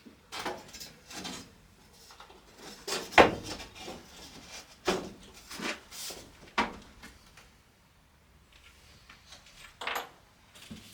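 Irregular knocks and scrapes, as of things being handled and set down, with the loudest knock about three seconds in and a quiet gap near two-thirds of the way through.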